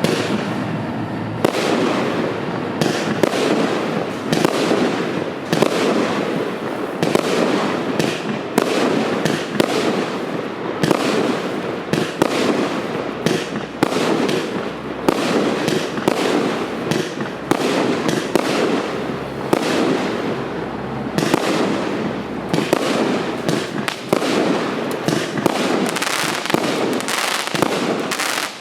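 A 36-shot, 30 mm calibre firework cake (FC3036-4) firing: its shots launch and burst in a dense, unbroken run of loud bangs.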